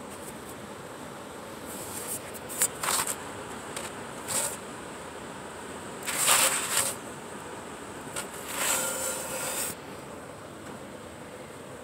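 A few short scraping and rustling noises over a steady background hiss.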